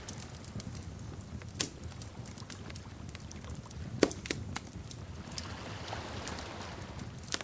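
Wood fire crackling: scattered sharp pops and snaps over a low steady rumble, the loudest pop about four seconds in.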